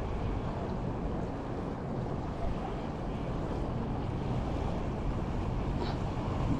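Wind buffeting the microphone, with waves washing against a rock jetty; a steady low rumble with no clear events.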